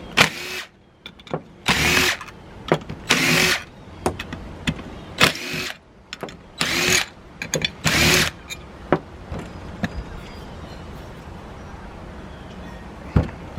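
A power tool run in six short bursts, each spinning up with a brief rising-and-falling whine, as the number 3 bell of a Nathan K5LA air horn is unbolted for teardown. A few light metal clicks follow.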